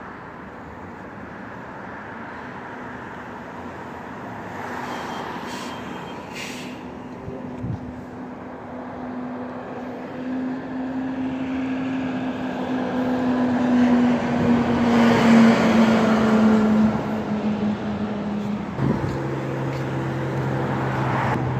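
Street traffic passing close: a steady drone grows louder and slowly falls in pitch, peaking about two-thirds of the way through. Near the end a vehicle engine idles close by with a low, steady hum.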